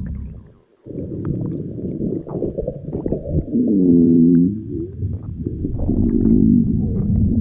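Stomach growling: a short break just under a second in, then a steady low gurgling rumble with long pitched groans that waver up and down, the loudest about four seconds in and another about two seconds later.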